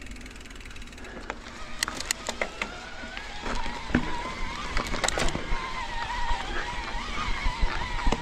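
Electric mountain bike's Specialized SL 1.1 mid-drive motor whining steadily under heavy load in boost mode on a steep uphill climb, starting about three seconds in. Sharp clicks and knocks from the bike rattling over the rough trail come through.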